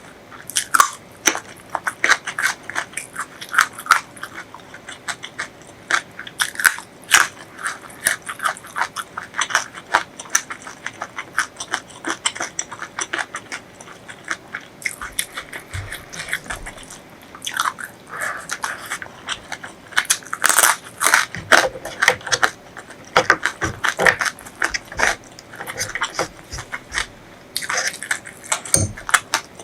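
Close-miked eating sounds: a mouth chewing and crunching crisp food, with dense, irregular crackly clicks throughout.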